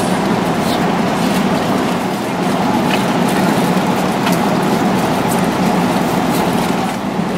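Steady in-flight cabin noise of an Airbus A330 at cruise: the constant roar of engines and airflow, with a few faint light ticks over it.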